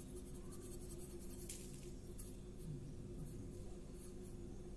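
Faint steady hum with a few soft scratches as salt is sprinkled from a spoon onto raw ox tongue.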